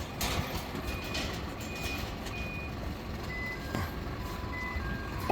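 Short steady beeps at several different pitches, recurring every half second or so, over a constant low rumble.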